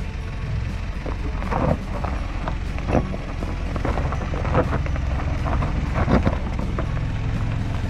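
A Mitsubishi Pajero crawling down a steep rocky track at low engine speed: a steady low engine drone with irregular cracks and crunches as the tyres roll over loose rocks and gravel.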